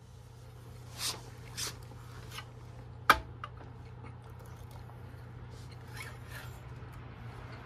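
Hands handling a Triton TRJ001 plunge router: rubbing and scraping on its housing with a few light clicks, and one sharp knock about three seconds in, over a low steady hum.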